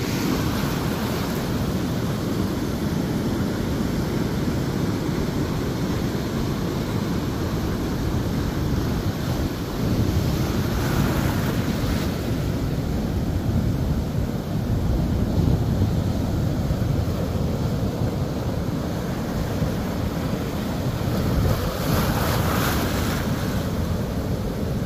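Ocean surf breaking and foamy water rushing in over the sand and along a concrete seawall, with wind buffeting the microphone. The rush of water swells about ten seconds in and again near the end.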